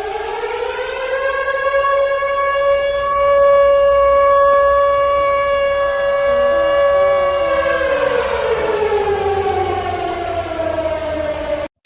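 Civil defense siren wailing. Its pitch rises over the first couple of seconds, holds steady through the middle, then falls slowly in the second half. It cuts out for an instant just before the end, then starts to rise again.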